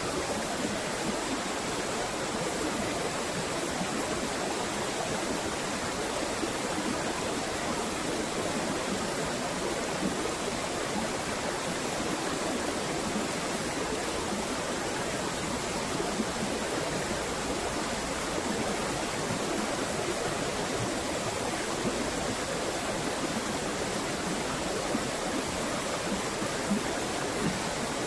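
Rushing water, a steady unbroken hiss of flowing river or falls water.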